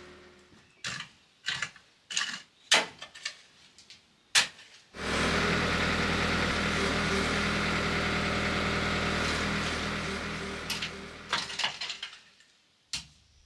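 Shovel blade striking and scraping through loose dry soil, a string of separate knocks and scrapes. About five seconds in, the diesel engine of a John Deere compact track loader starts up suddenly and runs steadily for about six seconds, then fades. Near the end come more shovel scrapes and a single knock.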